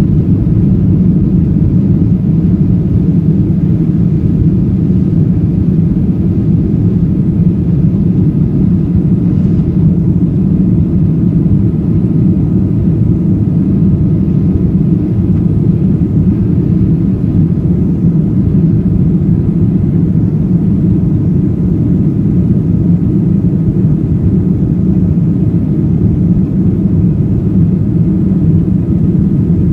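Steady in-flight cabin noise inside a Boeing 737-800: a constant low rumble of airflow and the CFM56 jet engines, with a faint steady hum above it.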